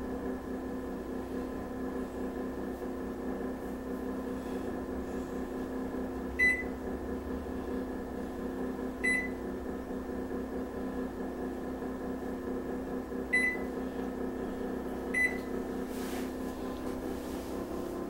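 Hamilton Beach microwave oven humming steadily as it runs, with four short single beeps from its keypad as buttons are pressed, spaced a few seconds apart in the middle of the stretch.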